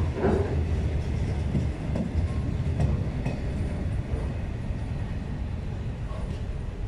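Intermodal container wagons of a freight train rolling past, a steady low rumble of wheels on the rails with a few brief clicks.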